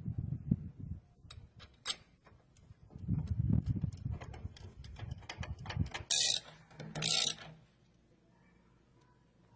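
Metal clicks and clanks of hand tools working on a bike stand, with a ratchet-like clicking, and two short hisses about six and seven seconds in.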